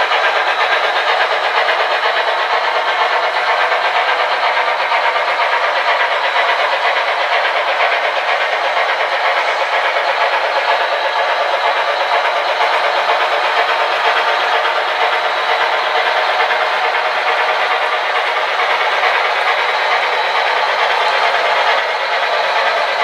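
Model trains running on the layout: a steady rolling and motor noise that keeps an even level throughout.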